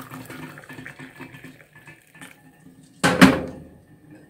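Faint clinks and handling of breakfast dishes, then a sudden, loud, short liquid sound about three seconds in.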